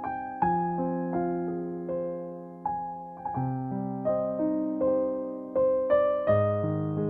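Background music: a piano playing slow chords, each struck note fading before the next.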